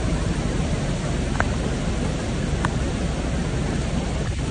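Heavy rain falling in a steady, even hiss, with a low rumble underneath.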